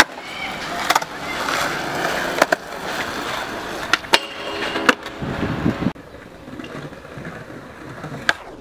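Skateboard wheels rolling on concrete, with sharp clacks of the board popping and landing. Around the middle comes a brief metallic scrape of the board sliding along a metal flat bar, ending in a landing clack. The rolling turns quieter for the last couple of seconds.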